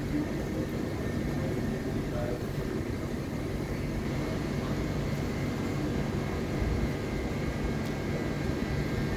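Steady low rumble of a railway station platform, with a faint steady hum and a thin high whine over it.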